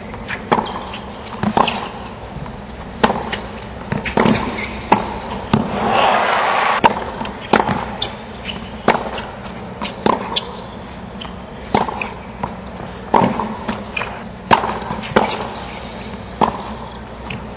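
Tennis ball being struck back and forth with rackets in rallies on a hard court: a run of sharp hits and bounces, roughly one every second.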